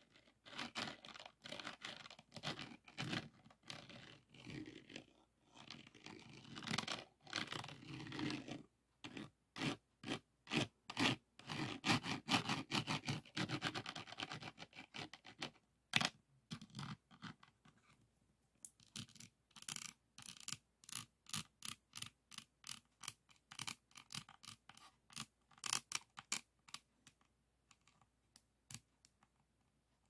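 A plastic diamond-painting pen scratches and taps over the rows of resin drills on a finished diamond painting, in fast runs of short strokes. About two-thirds of the way in, the strokes turn crisper and more separate, and they stop shortly before the end.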